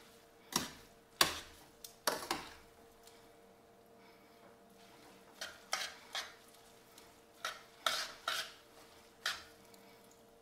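Metal tongs clattering against a stainless steel pan as spaghetti is tossed, in short bunches of clinks with a lull in the middle. A faint steady hum runs underneath.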